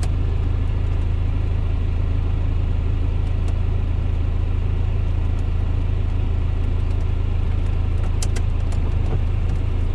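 Cummins R2.8 four-cylinder turbo-diesel idling steadily, a constant low hum heard from inside the Jeep's cab. A few faint clicks come about eight seconds in.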